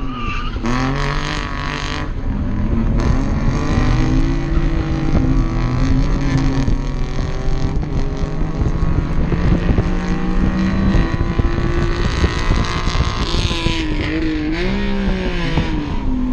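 Kei car's small engine heard from inside the cabin under racing load, its note climbing early on and holding fairly steady, then falling and climbing again in the last few seconds, with road and wind noise underneath.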